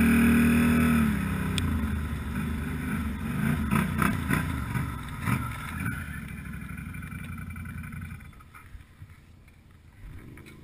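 ATV engine running at speed on a gravel track, with short knocks and rattles from bumps over the rough surface. About eight seconds in, the engine eases off and the sound falls away sharply.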